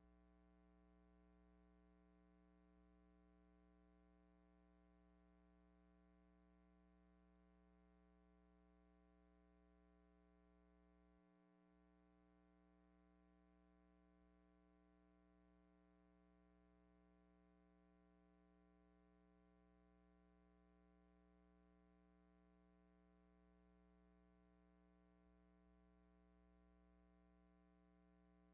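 Near silence, with only a faint, steady hum of several even tones that never changes.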